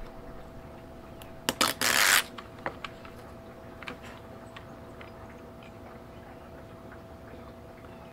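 Backing liner peeled off a strip of heavy-duty double-sided tape: a few small clicks, then a short ripping rasp about two seconds in, and faint ticks after it.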